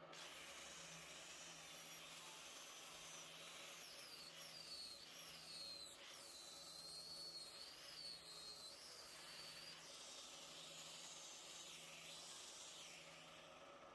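Wood lathe running with a tool cutting the spinning wood: a faint, steady hiss over a low pulsing motor hum, with a thin, wavering high squeal for several seconds in the middle.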